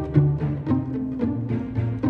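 Background music: string instruments playing short notes, several a second, over a low bass line.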